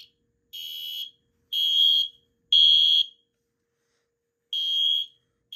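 Wheelock MIZ-24S mini fire-alarm horn sounding a shrill electronic horn tone in the temporal-3 evacuation pattern: three half-second blasts a second apart, a pause of about a second and a half, then the next set starting with two more blasts.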